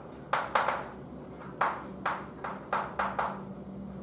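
Chalk writing on a blackboard: an irregular run of sharp taps and short scratchy strokes as the letters go down.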